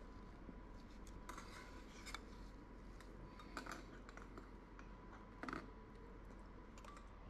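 Near silence: faint room tone with a thin steady high tone and a few soft clicks, the clearest about two, three and a half and five and a half seconds in.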